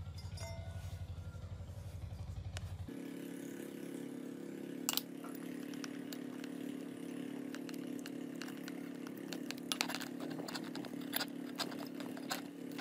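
A steady motor hum, low and fast-pulsing at first, then changing abruptly about three seconds in to a steadier, higher hum. Scattered light clicks and taps come from a rusty bicycle chainring and crank arm being handled and wrapped in black electrical tape.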